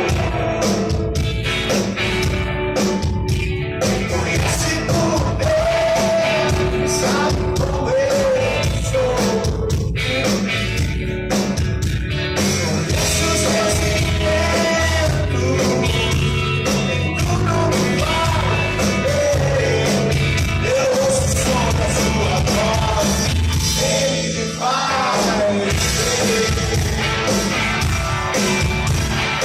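Christian rock band playing live, with drums, bass and guitars under sung vocals.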